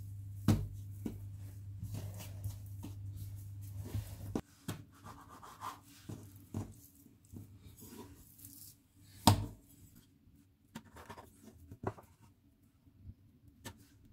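Scattered taps and knocks of a scraper and knife cutting a rolled log of laminated dough on a work surface, with soft rubbing of hands on the floured dough; two louder knocks, one just after the start and one about nine seconds in. A steady low hum runs under the first four seconds and stops abruptly.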